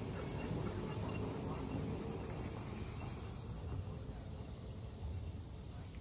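Cicadas droning in a steady, high-pitched buzz over a low rumble.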